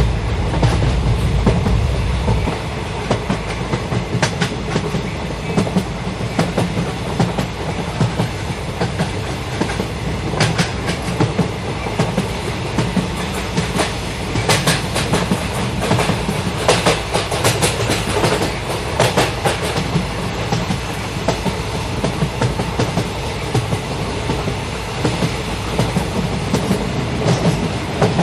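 Goods train running on the rails, a steady rumble with the wagons' wheels clicking irregularly over rail joints in a clickety-clack, the low rumble heavier for the first couple of seconds.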